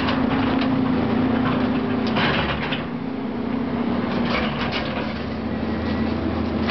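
Caterpillar tracked hydraulic excavator's diesel engine running steadily under load, with bursts of clattering and crunching as the bucket breaks up roof and wall debris, about two seconds in and again around four seconds.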